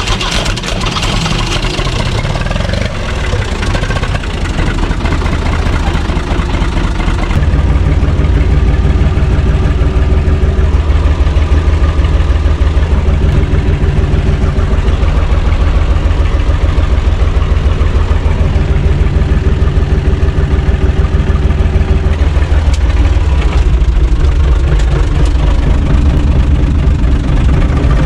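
UTB U445 DT tractor's four-cylinder diesel engine running just after start-up, idling unevenly at first, then settling into a louder, steadier run about seven seconds in.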